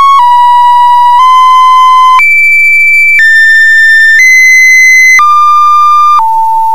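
Loud synthesized electronic tones with a buzzy, overtone-rich timbre. Each pitch is held steady for about a second before it jumps to a new one, stepping up and down through about eight notes.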